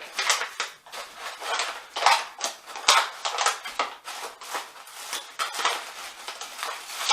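Foil freeze-dried meal pouch being cut across with scissors and pulled open. It crinkles and rustles in a run of short, irregular bursts.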